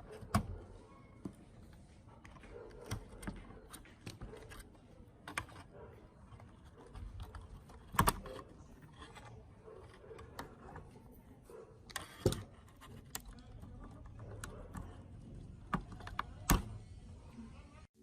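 Irregular clicks, taps and knocks of small metal and plastic parts being handled while working on an old, rusty EVD player, with a few sharper clicks about 8, 12 and 16 seconds in.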